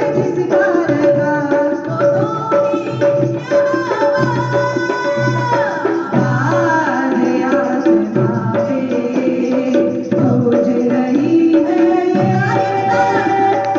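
Music from a Hindi Christian worship song: tabla-style hand drums keep a steady rhythm under a melodic instrumental line.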